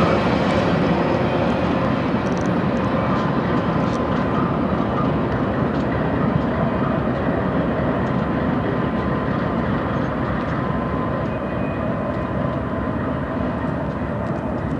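Double-stack intermodal freight train rolling past: a steady rumble of the cars' wheels on the rails, easing slowly.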